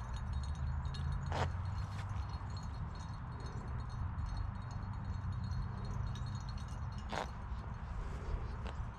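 Faint metallic jingling over a steady low rumble, with two sharp clicks, one about a second and a half in and one near the seven-second mark.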